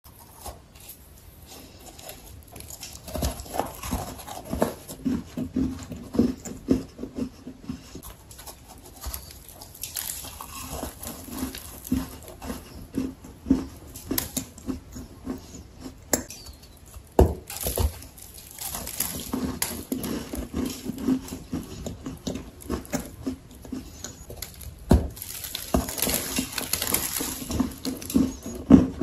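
Close-up crunching and chewing of a lump of dry sandy clay: irregular crisp crackles in bouts, with a few sharper cracks as pieces are bitten off.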